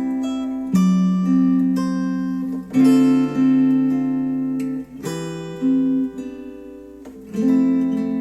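Acoustic guitar music played back through Focal Chora 806 bookshelf speakers driven by a NAD C 328 amplifier: a slow run of plucked chords, a new one struck about every two seconds and left to ring and fade.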